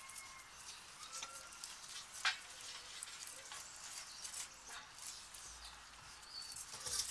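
Dogs feeding from metal bowls on dirt ground: scattered light clicks and taps, with one sharper clack about two seconds in. A few short bird chirps sound in the background.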